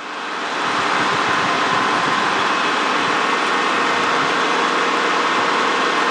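Steady helicopter engine and rotor noise heard inside the cockpit, with a steady whine running through it; it swells up over the first second and then holds level.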